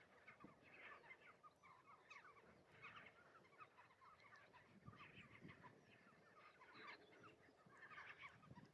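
Faint, distant chattering of a large flock of black-tailed godwits on the estuary, many short calls overlapping without a break.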